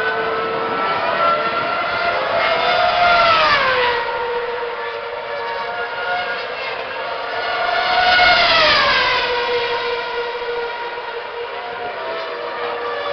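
Formula 1 cars' 2.4-litre V8 engines running at high revs, a high-pitched multi-toned whine. Two cars pass close by, about three and eight seconds in, each note dropping sharply in pitch as it goes past, with other cars heard further around the circuit.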